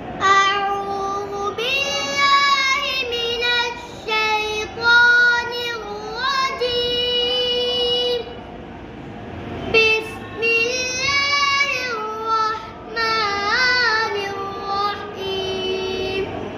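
A boy reciting a Noorani Qaida lesson of Arabic letters and syllables in a melodic, chanted tune. He holds long notes, glides between them, and pauses briefly about halfway through.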